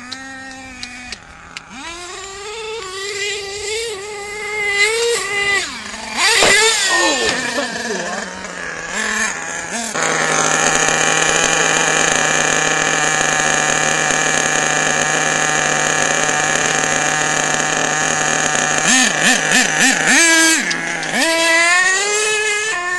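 Nitro RC monster truck's small glow-fuel engine revving up and down as the truck drives, then held steady at high revs and louder for about nine seconds, with the pitch swinging up and down again near the end.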